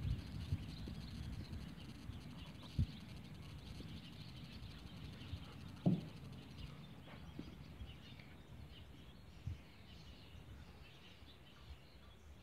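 Rural outdoor background noise: a steady low rumble with faint bird chirps and a few brief dull thumps, the loudest about six seconds in.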